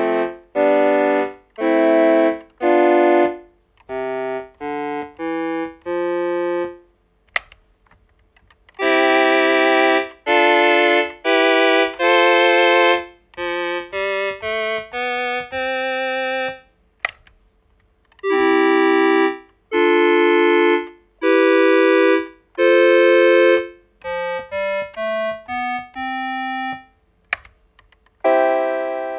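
Yamaha Portasound PS-2 vintage portable keyboard playing its built-in preset voices through its own speakers: four held chords, then a short rising run of single notes, repeated three times, each time with a different voice. A sharp click sounds between each group.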